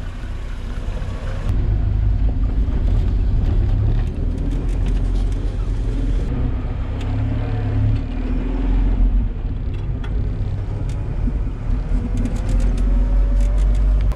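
Land Rover Series 1 driving off-road over a rutted track: a steady low engine rumble with scattered sharp knocks. The rumble grows louder about a second and a half in, as heard from on board the vehicle.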